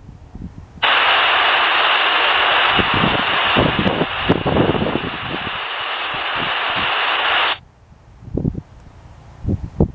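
Airband radio scanner opening squelch on a hissing transmission with no words heard: static switches on just under a second in and cuts off suddenly about seven seconds later. Gusts of wind buffet the microphone throughout.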